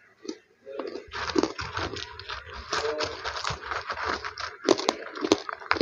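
Close-miked crunching and chewing of a crispy snack: a run of dense crackling, then several sharp crunches near the end.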